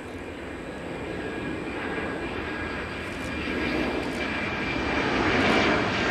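Boeing 747-400 freighter's four turbofan engines at takeoff power as it climbs away: a continuous jet rumble with a steady high whine, growing louder toward the end.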